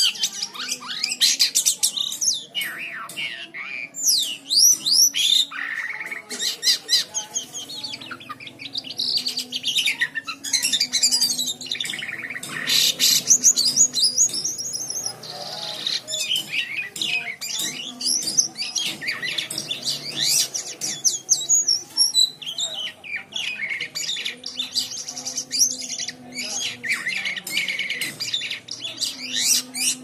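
Caged jalak kapas (kapasan) singing lustily: a long, nearly unbroken run of rapid chirps, trills and whistled glides, with only brief pauses.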